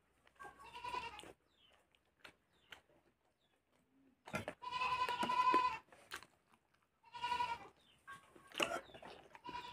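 Goat bleating several times, with a high, wavering call; the longest runs about a second and a half in the middle. Faint clicks come between the calls.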